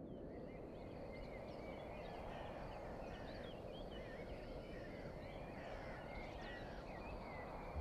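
Many small birds chirping and twittering together, faint, over a low steady rumble of background noise.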